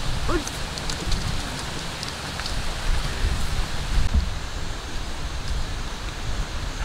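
Outdoor wind noise on the microphone: an uneven low rumble under a steady hiss, with a few faint ticks.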